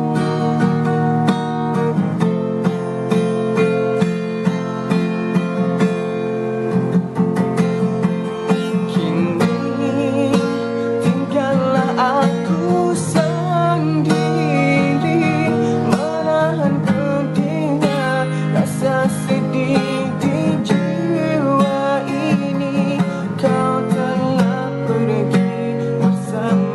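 Acoustic guitar playing an instrumental passage, strummed and plucked, with a wavering melody line over the chords near the middle.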